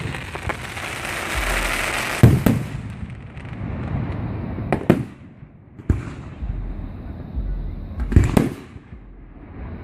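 Aerial fireworks shells bursting overhead at close range: sharp booms every second or two, several in quick pairs, with a crackling hiss from one burst early in the run.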